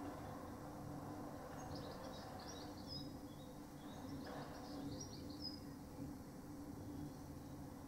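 A songbird singing short high trilled phrases, twice, over a steady low mechanical hum with no clatter or knocks.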